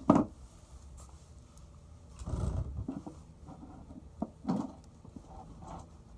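A .22 rifle shot right at the start, a single sharp crack, then duller low thumps and handling noise, with another short sharp report a little past four seconds in.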